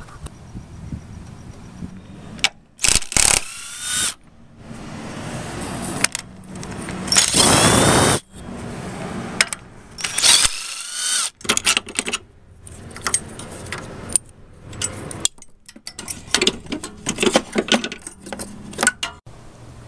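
A power tool spinning a socket in short bursts of about a second, working the bolts at the engine mount bracket of a 5S-FE Camry, with quick metallic clicks and clinks from the tool and bolt between and after the runs.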